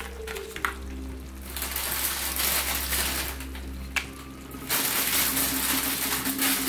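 Fish and vegetables steaming in a covered-over pan with a steady hiss that gets louder about five seconds in, plus a couple of light clicks as crackers are set on top.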